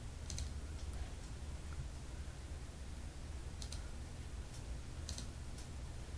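Computer mouse clicking: a few faint scattered clicks, three of them quick double clicks, over a low steady hum.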